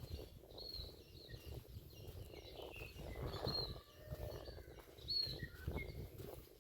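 Small birds chirping: short, high arched notes repeated about once a second, over irregular low thumps.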